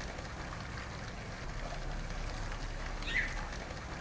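Steady outdoor background ambience with a low rumble, like distant traffic. A single short high note falling in pitch sounds once, about three seconds in.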